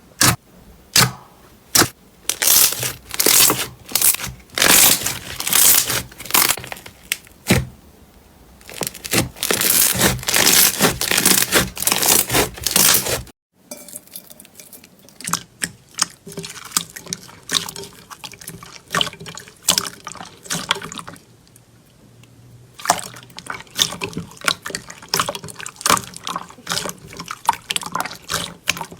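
Slime being pressed, stretched and poked by hand: a run of short wet squelches, pops and crackles. About 13 seconds in it cuts off sharply and a quieter stretch of smaller clicky, sticky pops follows.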